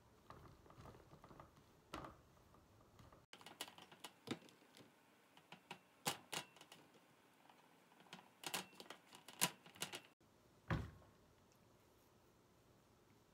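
Hands spreading damp sphagnum moss over plastic mesh: faint, irregular taps and clicks of fingers and mesh on the tabletop, with one heavier thump about three-quarters of the way through.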